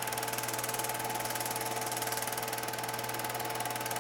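Bell & Howell 1623 Dual 8 film projector running forward: a steady motor hum and whir with a fast, even mechanical chatter from the film-advance mechanism.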